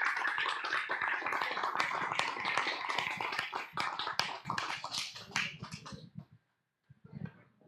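Congregation applauding, the clapping thinning out and dying away about six seconds in.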